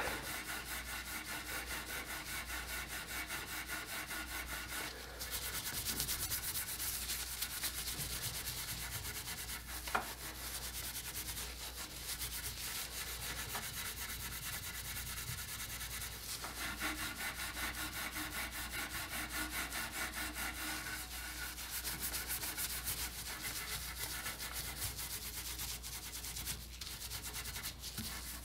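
A pad rubbing back and forth over the finished oak arm of a rocking chair, scrubbing off old grease and grime: a steady, scratchy rubbing of quick strokes that grows a little louder in two stretches, with one small tick about ten seconds in.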